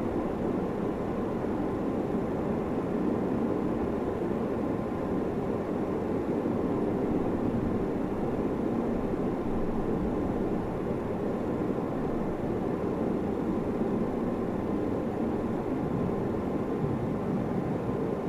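Steady low background noise, even throughout with no distinct strokes or events.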